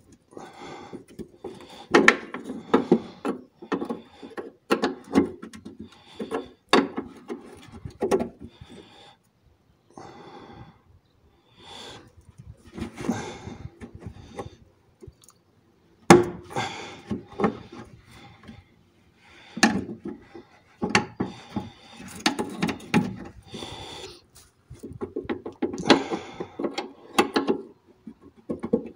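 Hand tools working a seized brake pipe fitting: repeated short bouts of metal clicks, knocks and scraping, with a few sharper knocks and brief pauses between bouts.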